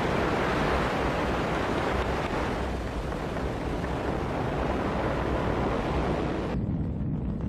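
Ariane 5 rocket at liftoff: the steady, dense rushing noise of its engines and solid boosters firing. About six and a half seconds in, the high part of the sound cuts off abruptly, leaving a deeper rumble.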